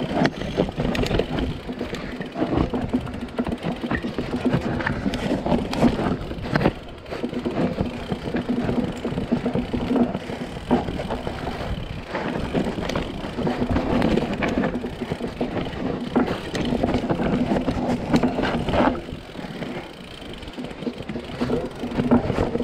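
Mountain bike riding fast down a dirt forest trail: tyres rolling over soil and roots, with frequent knocks and rattles from the bike over bumps.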